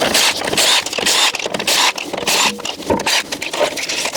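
Irregular mechanical clattering and scraping of hand work on metal parts, with many quick sharp knocks.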